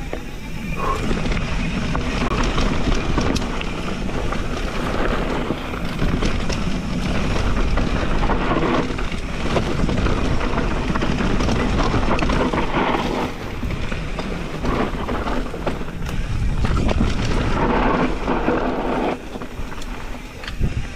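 Santa Cruz Hightower mountain bike riding fast down a dry dirt singletrack: a steady rumble of tyres on dirt and loose rock, with the bike rattling and knocking over the bumps. It quietens a little near the end.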